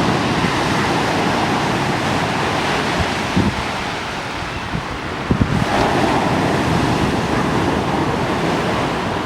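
Stormy Black Sea surf breaking on the shore in a steady rush, with a surge just over halfway through. Wind buffets the microphone, with a few low thumps.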